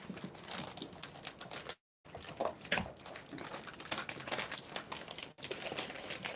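A cat crunching dry kibble: a quick, irregular run of crunches and clicks, with a brief cut-out about two seconds in.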